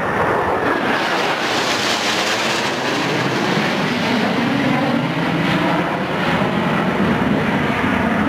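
Blue Angels F/A-18 Hornet jets flying past overhead, their engines making a loud, steady rush. The sound is higher-pitched in the first three seconds and deeper after.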